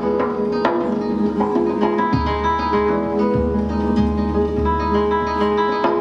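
Acoustic guitar played live, plucked melody notes ringing over held low bass notes.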